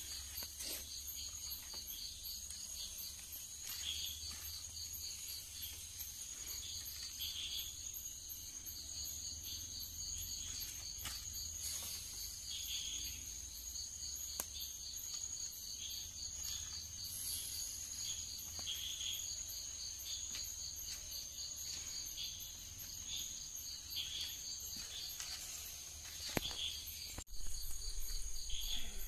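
Crickets chirping in a steady high chorus of rapid pulsing trills over a continuous high whine. Near the end the sound breaks off abruptly and returns with a louder low rumble beneath it.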